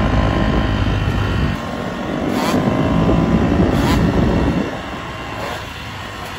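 GasGas dirt bike engine held on the throttle through a wheelie. It eases off about a second and a half in, pulls hard again, then drops to a quieter, lower run near the end.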